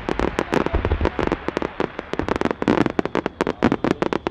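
Fireworks barrage: a rapid, dense run of sharp bangs and crackles, many per second, from many small shells bursting together.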